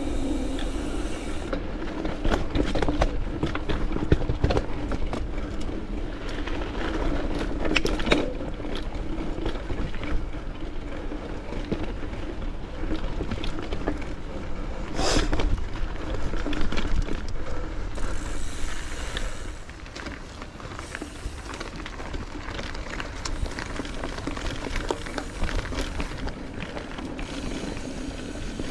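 Mountain bike ridden over a dirt singletrack trail: steady tyre and drivetrain noise broken by frequent knocks and rattles from the bike over bumps, with one sharp knock about halfway through. It gets somewhat quieter about two-thirds of the way in.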